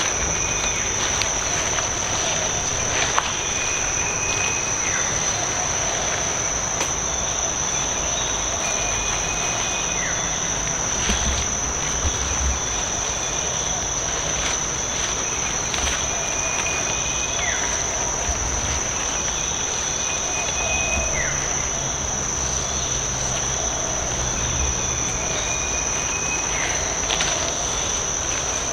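Steady high-pitched drone of forest insects, with a bird repeating a short whistled note every few seconds, each followed by a quick falling note.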